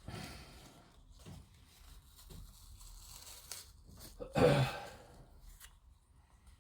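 Small handling noises of plastic model-kit parts: faint scattered clicks and rustles, with one louder brief rustle about four and a half seconds in.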